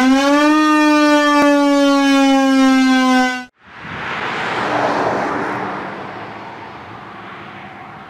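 Federal Signal 2001-130 electromechanical warning siren winding up to a loud, steady tone on a test run. About three and a half seconds in, the sound cuts off abruptly. The siren then goes on more faintly and less clearly, swelling for a moment and then slowly fading.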